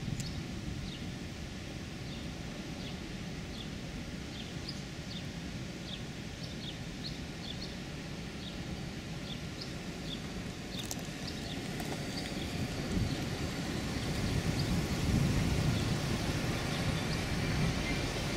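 Car driving slowly, a steady low road and engine rumble heard from inside the cabin, growing somewhat louder about two-thirds of the way through. A string of short high chirps repeats over it.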